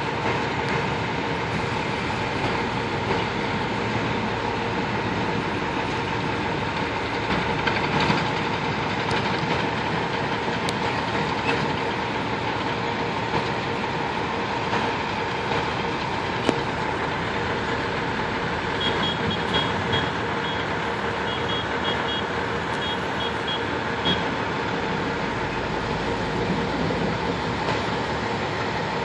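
Crawler bulldozers working a gravel base: a steady engine drone with a held pitch and the rattle of their steel tracks. A run of short high beeps sounds in the second half.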